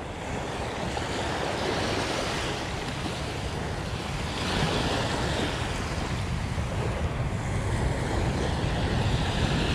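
Small waves washing up a sandy beach, a steady surf wash that swells and eases, with wind buffeting the microphone.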